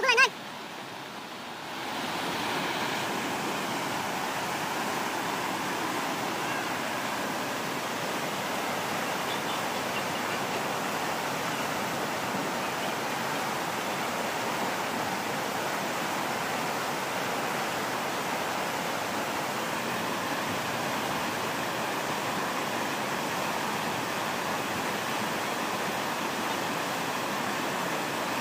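Steady rushing of a fast-flowing river in flood, its churning brown current running high with standing waves; softer for the first two seconds, then even throughout.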